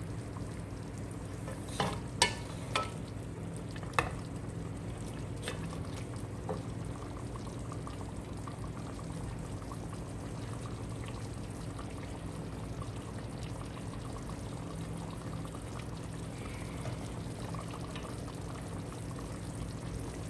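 Chicken wings in a pan of reduced soy-based adobo sauce, sizzling and simmering over a steady low hum. A few sharp knocks of a utensil against the pan come in the first six seconds, the loudest about two seconds in.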